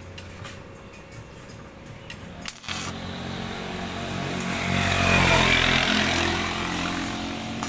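Motorcycle engine running, growing louder to a peak about halfway through and then fading, as if it passes by. A steady low hum sits under the first couple of seconds.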